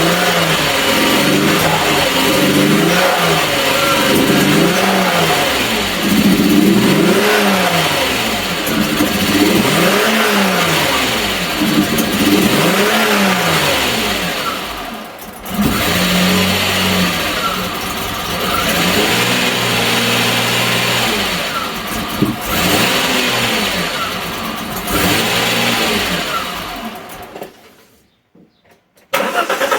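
Alfa Romeo 164 2.0 V6 turbo Busso engine running and being revved up and down, over and over. The sound drops away to near nothing for about a second near the end.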